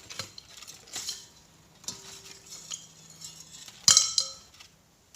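Scrap copper and metal parts clinking and clattering as they are handled. About four seconds in comes one loud metal clank that rings briefly.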